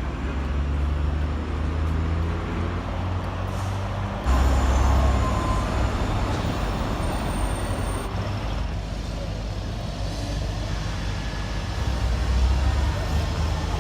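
City street traffic dominated by the low engine rumble of a heavy vehicle such as a bus or truck, steady throughout and getting louder about four seconds in.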